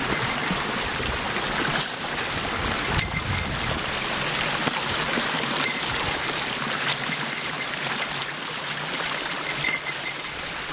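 Fast-flowing woodland stream rushing over rocks, a steady hiss of busy water, with a few light knocks.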